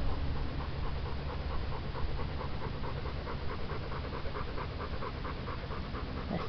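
Black Labrador retriever panting rapidly and evenly with her mouth open, a dog cooling herself down because she is hot.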